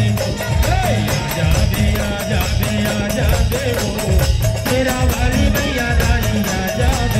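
Loud Indian folk music with a steady drum beat and a wavering melody line, accompanying a costumed Navratri dance.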